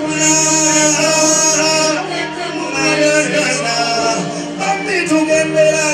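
Male vocals sung into microphones over band music with keyboard, bass and guitar, with long held, bending notes.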